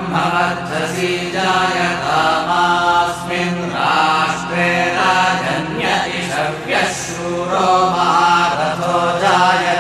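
Chanted mantra: a voice intoning in long, gliding melodic phrases over a steady drone.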